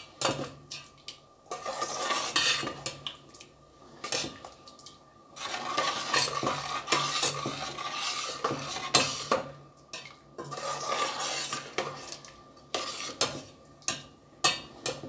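A metal spoon stirring lentil curry in a stainless-steel pot, scraping and clinking against the pot's sides in several bouts with short pauses. A faint steady hum runs underneath.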